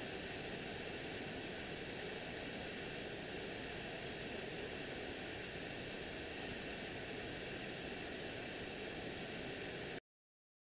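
Steady rushing of a fast-flowing creek running over rapids, an even hiss that cuts off abruptly near the end.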